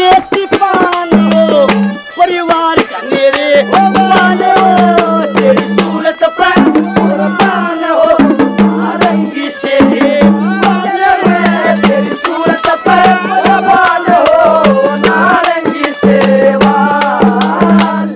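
Instrumental passage of a Haryanvi ragni: fast, dense hand-drum strokes under a wavering melodic line and a repeating low note.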